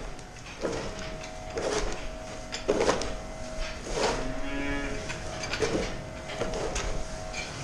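A cow moos once, about four to five seconds in. Repeated rustling and scuffing of hay in the feed alley and a steady hum run underneath.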